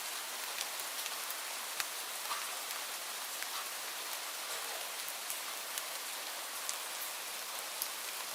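Light rain falling, a steady soft hiss with individual drops ticking here and there.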